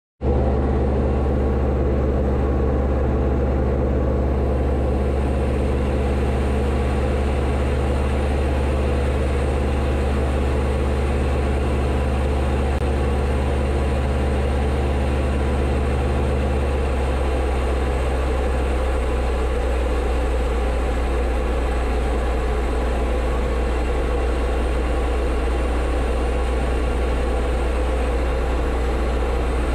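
Diamond DA-20's four-cylinder piston engine and two-blade propeller running steadily in flight, a constant drone. The engine note changes slightly a little past halfway.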